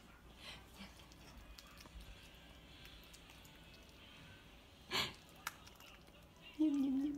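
A baby's voice: a short breathy puff about five seconds in, then a held vocal note that starts near the end, over quiet room tone.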